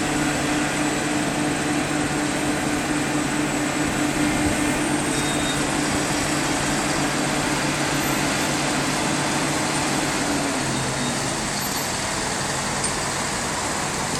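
Link-Belt 460 X2 excavator's diesel engine running steadily under a wide mechanical noise, its tone dropping about ten seconds in as the revs fall.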